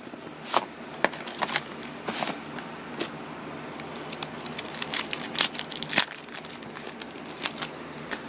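Packaging of a hockey-card mystery pack being torn open and crinkled by hand, with a run of sharp crackles and clicks as the wrapper and cards are handled.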